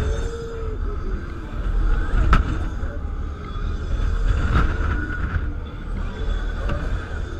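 On-board sound of an Extreme Orbiter fairground ride in motion: rushing wind buffeting the microphone over the rumble of the ride, with sharp clacks about two seconds in and again halfway through.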